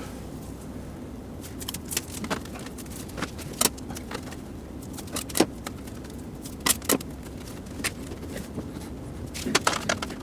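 Scattered, irregular clicks and light metallic clinks from sheet-metal PC case parts being handled, with a quick run of them near the end.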